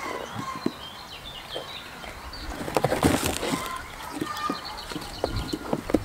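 Goat hooves knocking and clattering on a board ramp, in a cluster of sharp knocks about three seconds in, with small birds chirping throughout.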